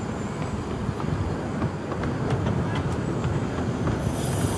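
Exmoor Steam Railway-built 0-4-2T 10¼-inch-gauge steam locomotive 'Peggy' and its coaches running slowly past, with a steady rumble of wheels on track and scattered clicks. A hiss comes in near the end.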